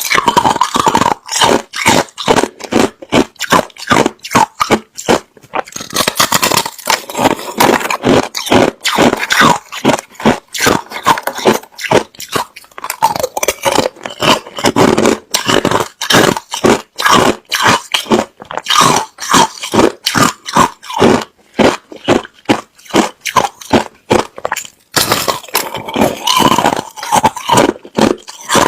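A person chewing hard, clear crushed ice: loud, rapid crunching bite after bite, with short pauses about 5, 12 and 25 seconds in.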